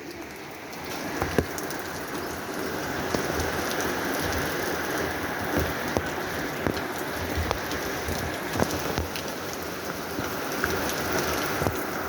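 Rain falling steadily, with heavy drops landing as scattered taps; it grows louder about a second in.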